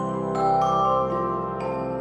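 Background music: a slow melody of struck notes over held chords.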